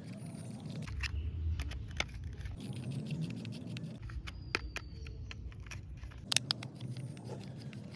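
Small screws being tightened into the plastic body of a toy Formula 1 racing car: irregular light clicks and taps of plastic and metal, with a few sharper clicks in the second half.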